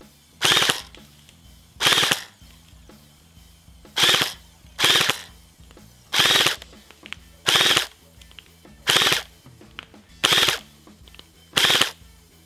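Double Bell BY-806 airsoft electric rifle (AEG) with a plastic gearbox, powered by a LiPo battery, firing about nine short full-auto bursts of rapid clicks, each a fraction of a second long and about a second or two apart.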